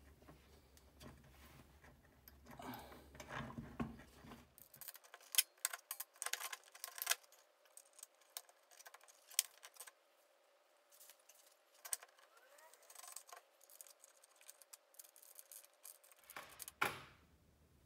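Scattered light clicks and small metallic rattles of hands handling the Bosch plunge router and its fittings mounted under the table, with one louder knock near the end; the router is not running.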